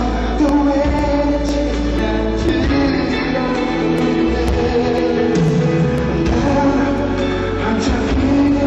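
Live concert music with singing over a steady beat of about two strikes a second.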